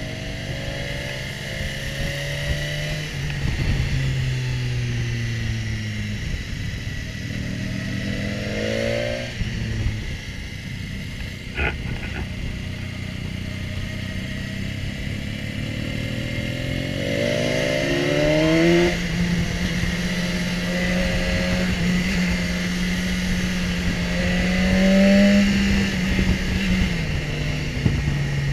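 BMW S1000XR's inline-four engine under way, its pitch climbing as it is revved and dropping back at gear changes and off the throttle, over a steady rush of wind. A single sharp click about twelve seconds in.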